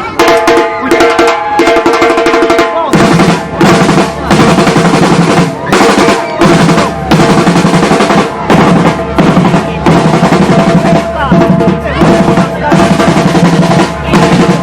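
Drum ensemble playing loudly with rapid snare-drum rolls; bass drums join in about three seconds in and the rhythm continues with brief breaks.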